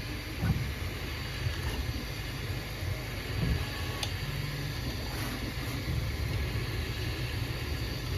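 Bambu Lab A1 Mini 3D printers running: a steady low rumble with hiss above it and a few light clicks.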